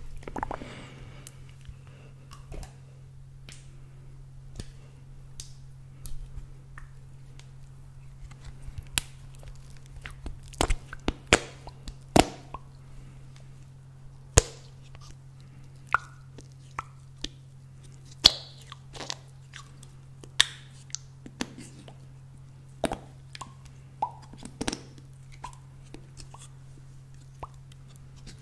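Close-miked hand sounds: fingers tapping and handling a small plastic container and the microphone body, giving scattered sharp clicks and taps, a few with a brief ring, over a steady low hum.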